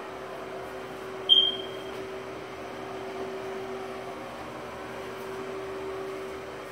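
Steady low electrical hum over faint room noise, with one short high-pitched beep about a second in that fades quickly.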